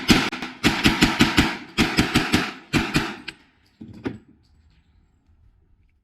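Semi-automatic pistol fired in a fast string, about four to five shots a second, for roughly three seconds. A single last shot follows about a second later, and then it goes quiet.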